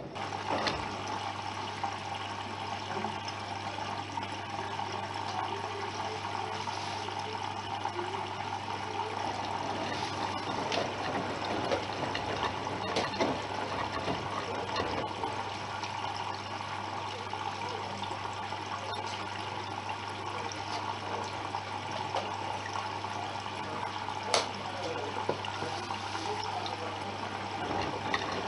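Water rushing through a Bosch Serie 6 front-loading washing machine, starting suddenly, over a steady electric hum, with a few scattered clicks and knocks.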